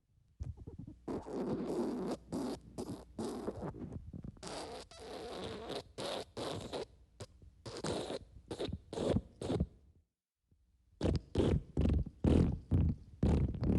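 Wet fart sound effects: a long run of short, irregular, sputtering bursts, broken by a brief silence about ten seconds in, then another quicker run of bursts.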